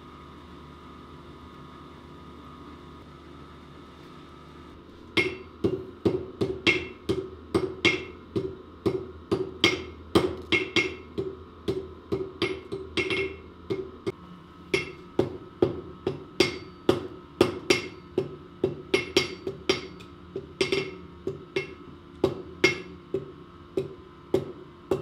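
Blacksmith's hammer striking hot steel on an anvil in a steady rhythm, about two to three blows a second, each blow ringing; the hammering begins about five seconds in after a steady hum and breaks off briefly near the middle. The blows are forge welding a stack of steel bars held in tongs.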